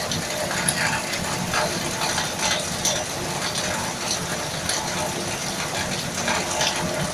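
Steady rushing noise with scattered faint clicks, level throughout and with no distinct event.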